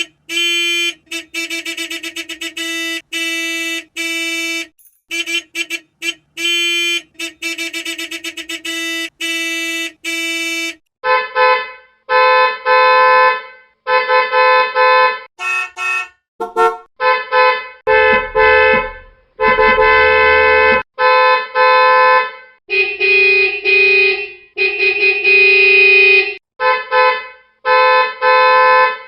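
Horns honking in short and long beeps: a lower-pitched horn beeps in rapid bursts for the first third, then a higher-pitched horn honks in a mix of short toots and longer blasts.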